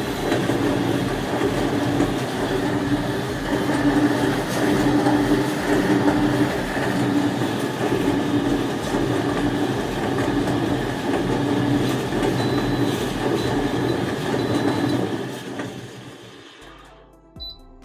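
Candy GVC D1013B tumble dryer running, with a steady rumble from the turning drum, motor and fan, fading out near the end.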